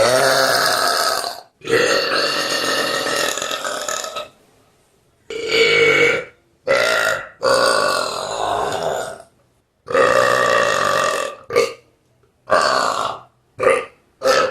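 A person burping loudly on purpose, about ten burps in a row. The first two are long and drawn out, lasting over two seconds each, and the later ones are shorter, some only brief bursts.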